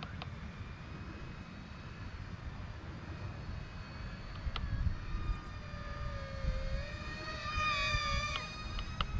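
Whine of a small RC plane's electric motor and propeller in flight, growing louder in the second half and wavering in pitch, loudest about eight seconds in, as the Volantex P-51D Mustang foam plane passes close.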